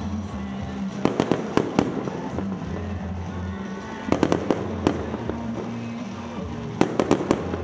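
Fireworks going off in three quick volleys of sharp bangs a few seconds apart, over background music with steady low notes.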